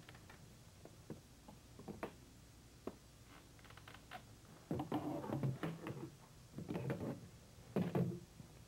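Rifles being handled on a glass-top table: a few light clicks and knocks, then three bursts of clattering and knocking from about the middle on as the guns are picked up, the loudest near the end.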